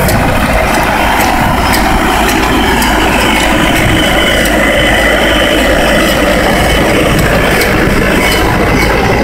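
New Holland vineyard tractor's diesel engine running steadily while the mounted Clemens cultivator and under-vine hoe work through the soil, with scattered light clicks over the engine noise.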